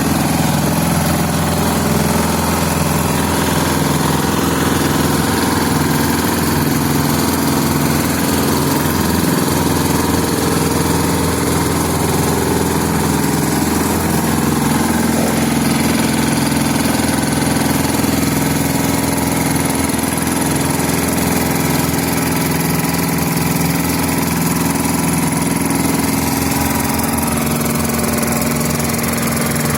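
Engine of an FVR850D vibratory road roller running steadily at an even speed.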